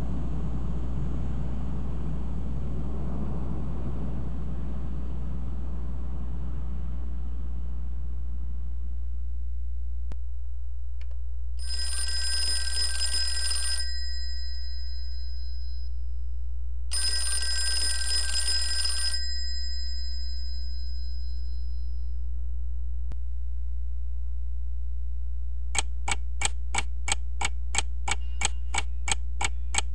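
Telephone bell ringing twice, each ring lasting about two seconds, after a noisy rumble fades out over the first several seconds. Near the end comes a quick, even series of sharp ticks, about three or four a second, all over a steady low hum.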